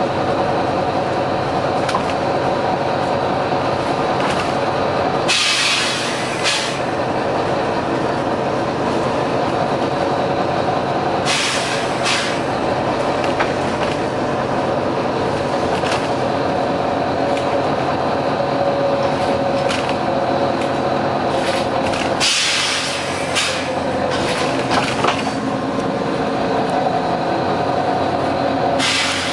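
Volvo B9TL double-decker bus's diesel engine running steadily, with short loud air hisses from its pneumatic system breaking in about four times, at roughly five, eleven, twenty-two and twenty-nine seconds in.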